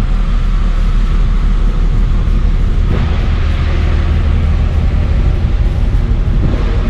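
Large car ferry's engines running at the pier before departure, heard from the open deck: a steady low rumble and hum, with a hiss that swells about three seconds in.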